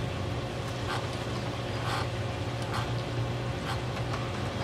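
Steady low background hum with faint scattered ticks and rustles; no landing impact is heard.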